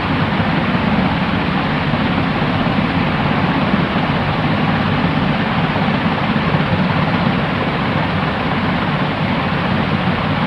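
Steady, unchanging white-noise hiss for sleep masking, with a low hum underneath and little treble.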